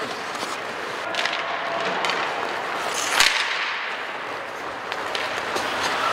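Ice hockey play in a rink: a steady hiss of skates on the ice, broken by a few sharp clacks of sticks and puck, the loudest about three seconds in.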